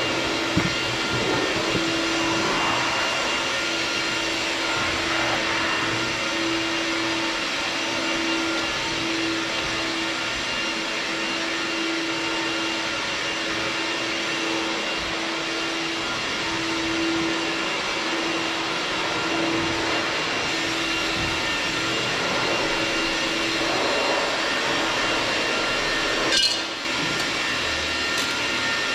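Steady machine whoosh with a constant low hum, and one sharp knock about two and a half seconds before the end.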